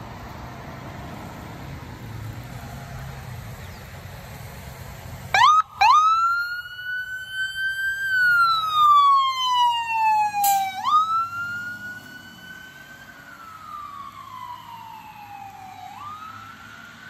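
Ambulance's electronic siren coming on about five seconds in with a short sharp burst, then wailing in slow sweeps: each rises quickly and falls slowly over several seconds, about three times. Before it there is only a steady background hiss.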